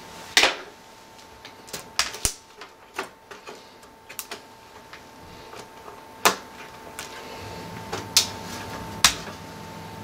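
Scattered clicks and knocks of hands working inside an opened Synology DS1815+ NAS: a cable connector being pulled off and the sheet-metal chassis being handled, about a dozen separate sharp taps with the loudest about six seconds in. A faint steady tone sits underneath, joined by a low hum near the end.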